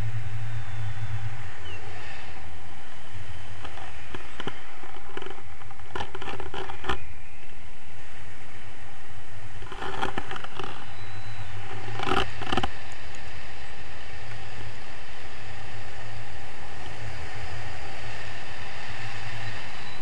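Steady wind rushing over the camera microphone during paraglider flight, with clusters of clicks and knocks about four to seven seconds in and again around ten to twelve seconds.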